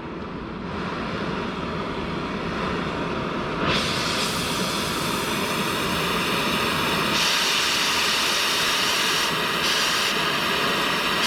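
Power tool cutting steel mounting tabs off a skid-steer roller frame: a steady, noisy cutting roar that turns louder and hissier about four seconds in, as the cut bites into the metal.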